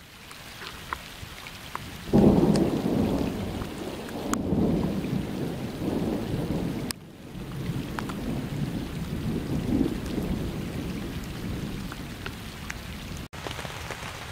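Thunder over steady rain: about two seconds in, a loud low rumble of thunder breaks out and rolls on in swells for most of the rest, with rain falling throughout.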